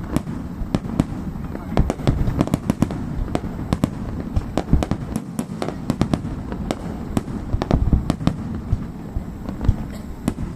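Fireworks display: rapid sharp bangs, pops and crackles, many a second without a break, over a low rumble of booms.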